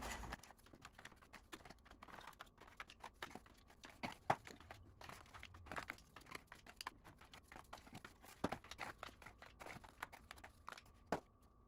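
K-Cup coffee pods being handled and slotted into a rotating pod holder: faint, irregular light plastic clicks and rustling, with a few sharper knocks about four, eight and a half and eleven seconds in.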